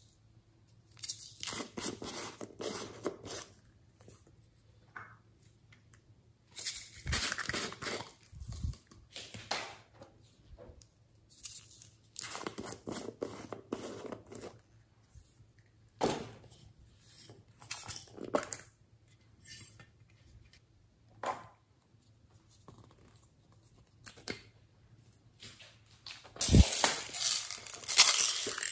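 Hands opening slime-making supplies: irregular bursts of tearing and crinkling of plastic packaging and a plastic tub being opened, separated by short quiet gaps, with the loudest, longest stretch of tearing near the end.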